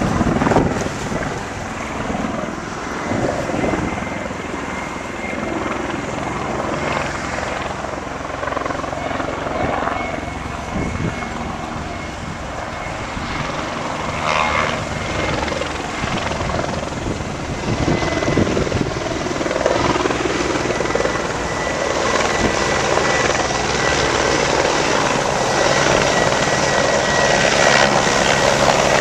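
Police helicopter flying past and coming in to land, its rotor and engine noise growing louder in the last third, with a thin steady whine.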